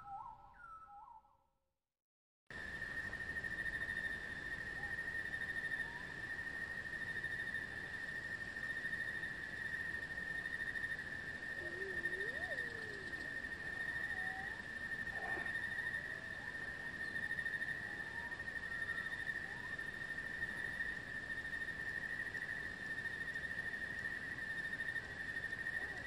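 A short whistled bird phrase, repeated several times, fades out in the first second. After a brief silence, a steady high-pitched insect trill sets in and runs on, with faint scattered bird calls over it.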